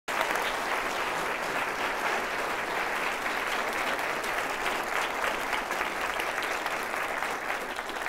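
Audience applauding steadily, many hands clapping together.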